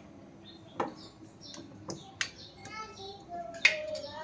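Steel spoon clinking against the inside of a glass jar while soft lemon pickle is pressed down into its juice: several sharp clinks, the loudest a little past halfway. A child's voice is heard briefly in the background.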